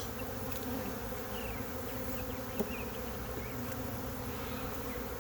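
Honey bees buzzing steadily around an opened nuc hive during a frame-by-frame inspection, with a single light click about two and a half seconds in.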